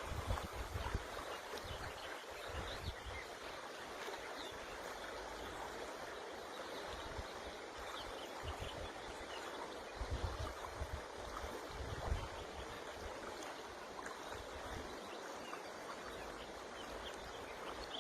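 River water rushing steadily. Now and then low rumbles of wind buffet the microphone, most strongly about ten and twelve seconds in.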